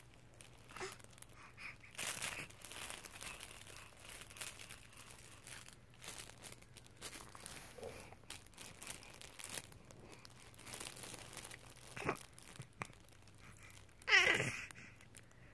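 A soft cloth baby book with crinkly pages rustling and crinkling in short, irregular bursts as small hands grab and turn it. Near the end a baby gives one short falling squeal.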